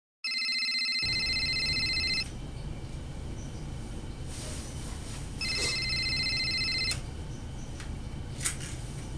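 A telephone ringing twice, each ring a warbling electronic trill lasting about two seconds, with a pause of about three seconds between them.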